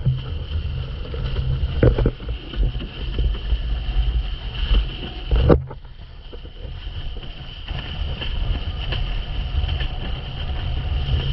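Wind buffeting the rig-mounted camera's microphone and water rushing under a planing windsurf board over chop, with a steady high whine underneath. Two loud thumps about two and five and a half seconds in.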